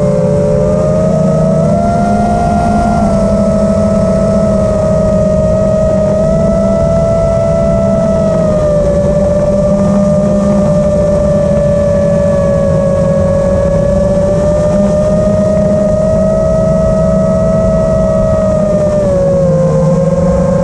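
FPV racing quadcopter's brushless motors and propellers whining steadily in flight, recorded by the camera mounted on the drone, over a low rush of prop wash. The pitch wavers a little with the throttle and drops briefly near the end.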